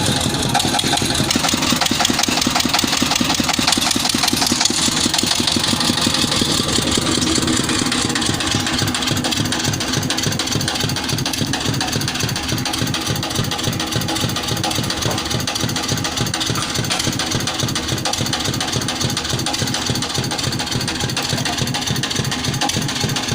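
Engine of a water-well boring machine running loud and steady with a fast, even pulsing beat while the rig drills the borehole.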